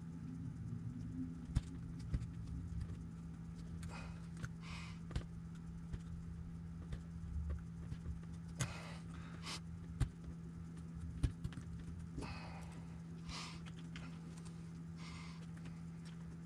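Light clicks, taps and short scraping rubs of small RC truck drive parts being handled and worked by hand, over a steady low hum; a few sharper clicks stand out.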